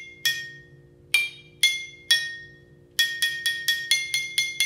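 Water-filled glasses struck with a spoon, each ringing a clear note whose pitch is set by how much water it holds. They play a simple tune: a falling run of three notes twice, then a quicker string of notes at about five a second.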